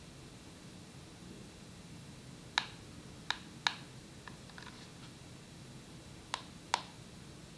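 Five sharp clicks, in two groups of three and two, with a few fainter clicks between them, over a faint steady low hum.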